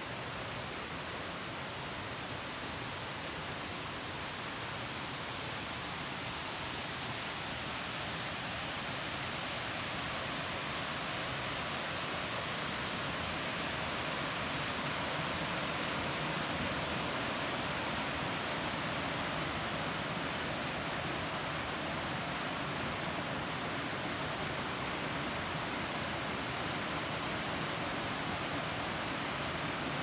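Steady rushing of water from a small waterfall, a stream spilling over a low ledge and rocks, growing a little louder toward the middle.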